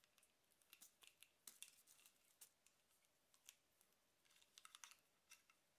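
Near silence with scattered faint clicks and rustles: a power adapter's cable being unwound and handled by hand.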